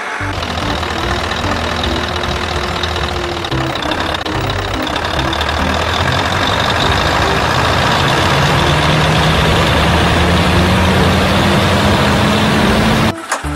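Truck engine sound running steadily, then revving up with a climbing pitch over the last few seconds before cutting off suddenly near the end.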